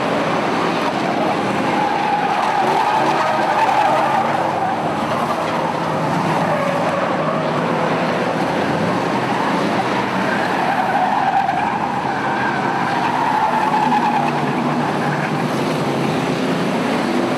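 A pack of V8 enduro stock cars racing through a turn, engines running hard with tires squealing as they slide through the corner. The squeal swells twice, a few seconds in and again about two-thirds of the way through.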